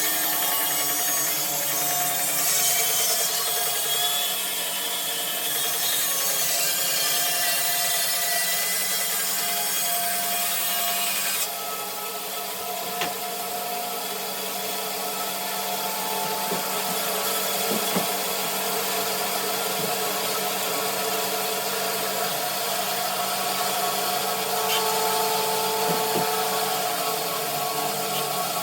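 Bandsaw with a 3/4-inch blade cutting through a dogwood log: a steady motor hum under the rasp of the blade in the wood. The hissing top of the sound drops abruptly about eleven seconds in, and the saw runs on steadily.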